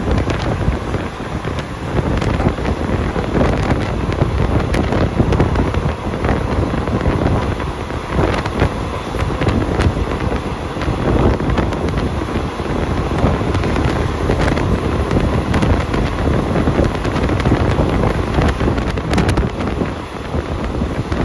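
Wind rushing past an open window of a moving passenger train and buffeting the microphone, over the train's steady running noise, with a few sharp clicks from the wheels and track.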